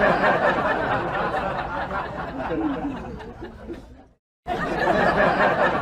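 Several people's voices chattering and laughing together, broken by a short silence about four seconds in before they resume.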